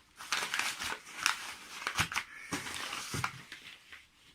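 Packaging being handled and unwrapped: irregular crinkling and rustling with scattered sharp clicks as the contents are pulled out.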